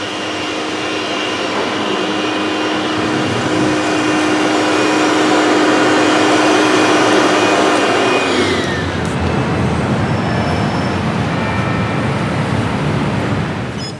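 Rotary floor polishing machine running with a steady motor hum and whine. About eight and a half seconds in the whine falls in pitch, and a duller steady noise carries on.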